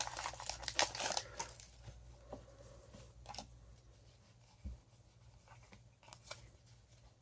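Pokémon TCG booster pack's foil wrapper crinkling and tearing open in the first second or so, then a few faint ticks and rustles.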